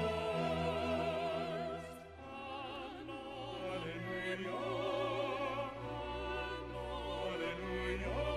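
Background music: an operatic voice singing with strong vibrato over orchestral accompaniment, with a short break between phrases about two seconds in.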